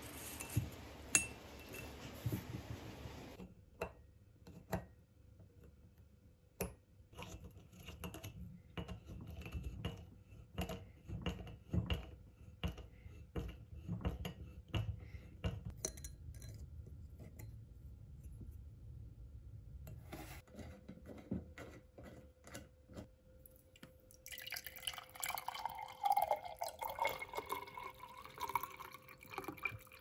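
Liquid dripping and trickling, with many small irregular clicks and clinks, after a steady hiss that cuts off a few seconds in; near the end a wavering gurgle rises over a faint steady hum.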